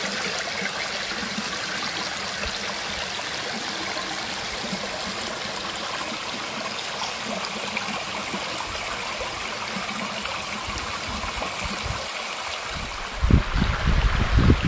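Steady rush of flowing water, as of a stream or river. Near the end, a loud low rumbling noise on the microphone sets in.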